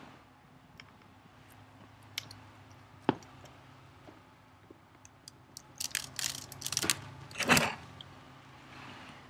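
A kitten stirring in a straw-lined wicker basket: a few faint clicks, then crackly rustling and crunching from about six seconds in, loudest at about seven and a half seconds, over a faint steady hum.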